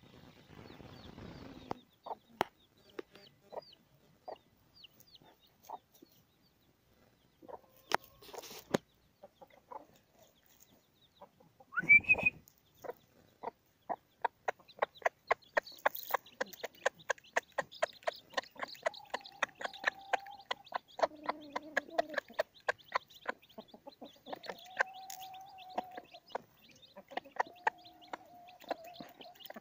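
Mother hen clucking to her brood in a series of short clucks, sparse at first, then a steady run of about four a second from the middle on, with a few drawn-out notes near the end. One loud rising call near the middle stands out above the rest.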